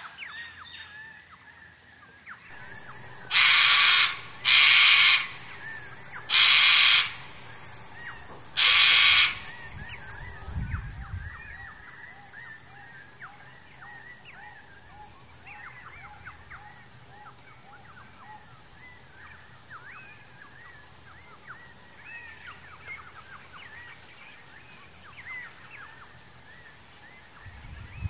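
Sulphur-crested cockatoo screeching: four loud, harsh screeches of under a second each, between about three and ten seconds in. Behind them are small bird chirps and a steady high-pitched hiss.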